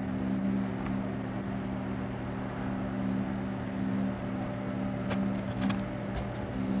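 A steady low mechanical hum, with a few faint clicks about five to six seconds in.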